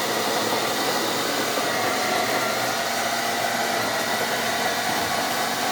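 Electric coffee grinder running steadily while grinding coffee beans, a loud even whir with a faint motor whine.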